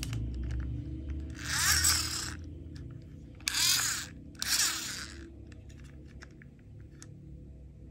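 Plastic toy monster truck handled and turned over in the hands: three short grinding, whirring bursts as its wheels are spun, each about a second long, between small plastic clicks and taps.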